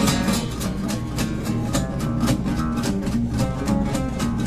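Two acoustic guitars played together fingerstyle, with picked notes and chords over a steady, rhythmic beat of plucks and strums.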